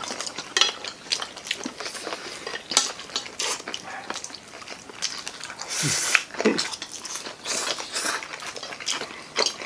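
Forks clinking and scraping on plates amid the chewing and noodle slurping of several people eating pancit canton and fried chicken, with many short sharp clicks and a louder rushing slurp about six seconds in.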